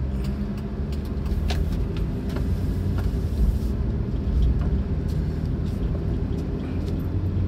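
Inside a moving car: a steady engine hum and road noise, with scattered light clicks and clatter from loose cargo on the passenger seat.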